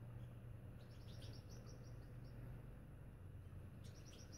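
Blacksmith lapwing calling: two quick runs of sharp, high clinking notes, one about a second in and another near the end, faint over a low steady hum.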